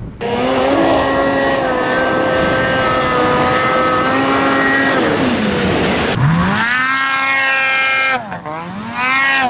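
Snowmobile engines at high revs: one held at a steady high pitch for about five seconds, then engine speed dropping and climbing again twice near the end.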